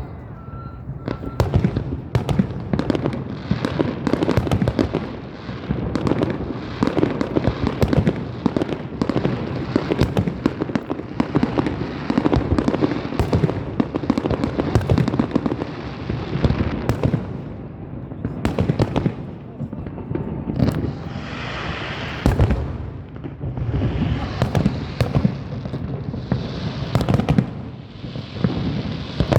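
Fireworks going off in quick succession, many loud bangs overlapping one another. Hissing, crackling bursts come in between, mostly in the second half.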